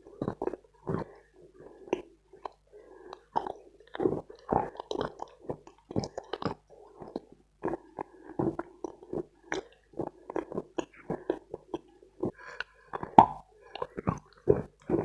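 Dense dry Khrapovsky chalk being chewed close to the microphone: an irregular run of short crisp crunches, several a second.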